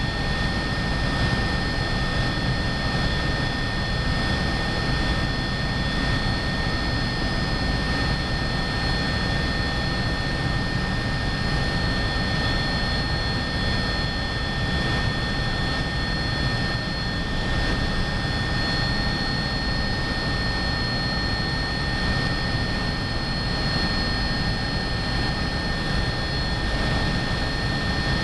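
Cabin noise of an Agusta A109BA twin-turboshaft helicopter in steady cruise: an even high whine of several steady tones over constant low-pitched engine and rotor noise.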